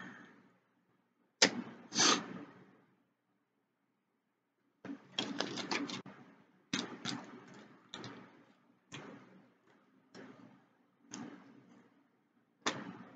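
Close-up eating noises from a takeout meal: a string of sharp clicks and taps, with a quick cluster about five seconds in and then single taps roughly once a second.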